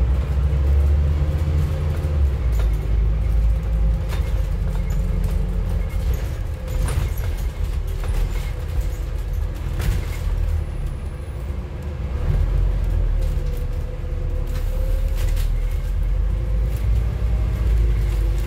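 Scania N280UD CNG double-decker bus under way, heard from the upper deck: a low engine rumble with a humming tone above it, easing off for a few seconds midway and building again, with short rattles and knocks from the body.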